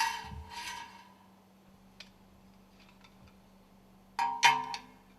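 Metal parts clinking together and ringing briefly, twice: once at the start and again about four seconds in. A few faint ticks fall between the two, over a faint steady hum.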